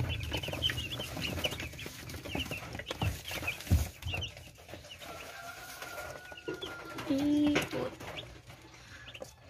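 A box of day-old broiler chicks peeping: many short, high cheeps overlapping all the time, with a single thump about four seconds in.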